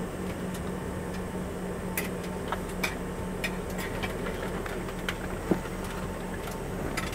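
Steady cabin hum inside an Embraer ERJ145 parked or taxiing slowly on the ground, with scattered light clicks and knocks. There is one louder knock about five and a half seconds in.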